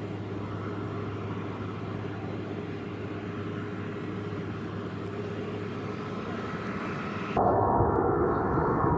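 Boeing 777 jet engines running steadily with a constant low hum while the airliner is on the ground. About seven seconds in, the sound jumps abruptly to the louder, fuller jet noise of the engines at climb power as the plane lifts away after takeoff.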